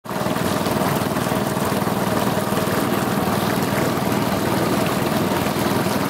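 Small wooden boat's engine running steadily as the boat moves across calm water, a fast, even beat that does not change pitch.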